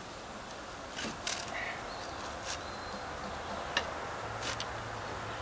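Hydraulic floor jack being worked under a wooden deck beam: a few scattered sharp clicks and light knocks over a steady outdoor background, with a low hum coming in near the end.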